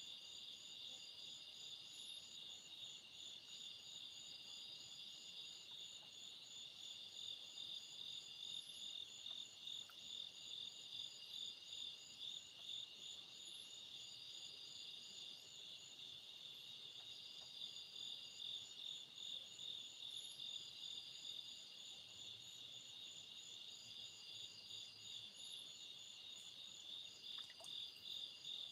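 Faint night-time chorus of insects such as crickets: a steady, high-pitched pulsing trill, with a second, higher trill that comes and goes every few seconds.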